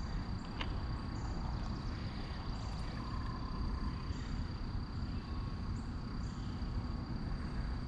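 A steady, high-pitched insect drone, likely crickets, over a low rumble.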